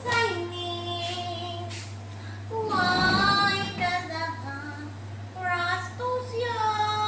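A woman's high voice singing slow, drawn-out notes without accompaniment, the pitch gliding between held tones.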